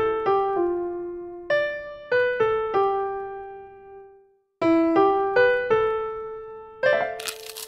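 A short piano-like keyboard jingle: runs of single notes, each ringing out and fading, broken by a brief silence about four seconds in. Near the end a rough, scratchy crackling noise starts.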